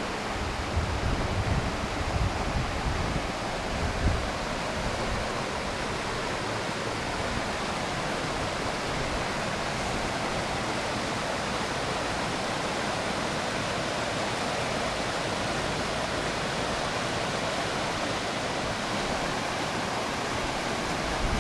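Waterfall cascade rushing steadily, an even hiss of falling water. A few low bumps come in the first four seconds.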